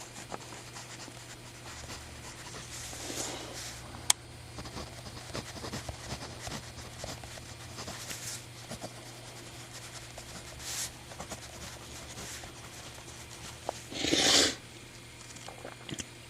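Gold-plated Kreisler Crown 2 mechanical pencil with 0.9 mm lead writing on paper: faint, intermittent scratching strokes, with one sharp click about four seconds in and a louder short rustle near the end.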